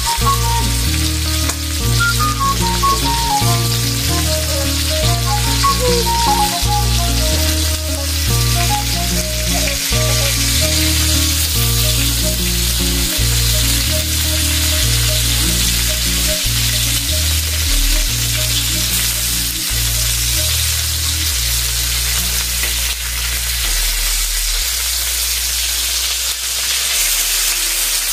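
Whole koi fish (climbing perch) sizzling steadily as they shallow-fry in hot oil in a black iron pan, with a metal spatula turning and pressing them. Background music with a steady beat plays under the sizzle and fades out near the end.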